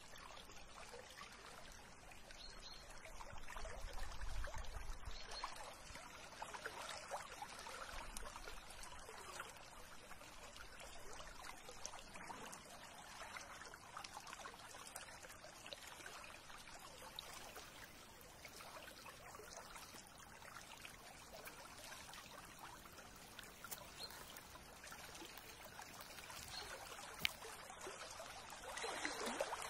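Spring water trickling through a narrow grassy channel, a faint steady babble. A brief low rumble comes a few seconds in.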